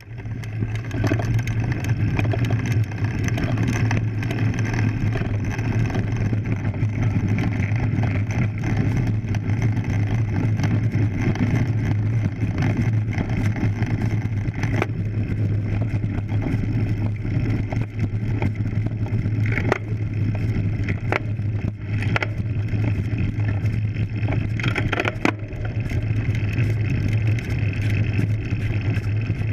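Road bike climbing a dirt road, heard from a camera mounted on the bike: a steady low hum and rolling noise from tyres and frame vibration, with a few sharp knocks and rattles from bumps in the road.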